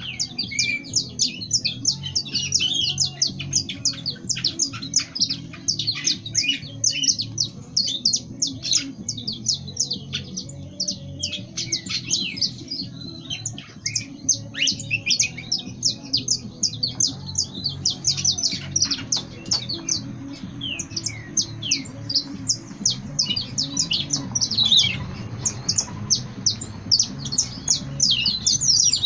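Caged Peruvian canary (canário peruano) singing continuously: a long, fast song of rapid high chirps and trills with almost no pauses.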